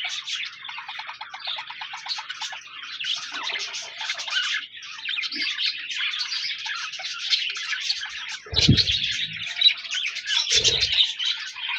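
A flock of budgerigars chattering and warbling without a break, with fast runs of chirps. Two short, louder low sounds break in near the end.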